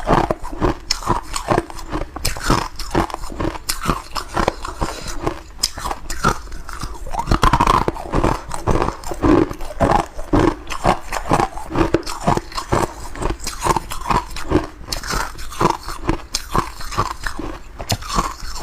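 Ice cubes being bitten and chewed close to the microphone: a steady run of sharp, brittle crunches, a few every second.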